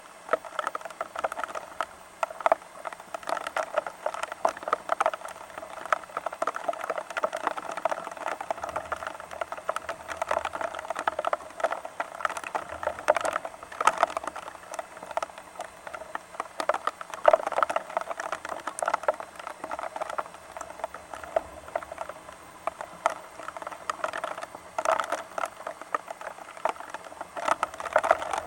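Rain pattering steadily, a dense crackle of drops with a few louder hits now and then.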